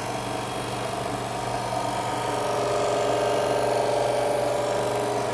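Drill press running steadily with a compound-charged cloth buffing wheel in its chuck, the wheel rubbing against a wooden resonator as it is polished. A steady motor hum with a higher whine, a little louder in the middle.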